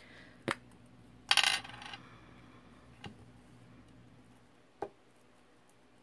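Plastic glue-bottle cap taken off and set down on a cutting mat: a sharp click about half a second in, a short rattling clatter just after a second, then two lighter clicks.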